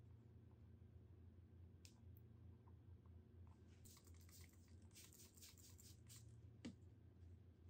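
Near silence: a faint low hum, with a brief run of light crinkling clicks about four seconds in and a single sharper tick near the end.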